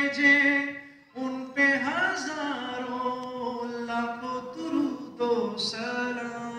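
A man singing a naat (an Urdu devotional song) unaccompanied into a microphone. He holds long, ornamented notes, with a short break for breath about a second in.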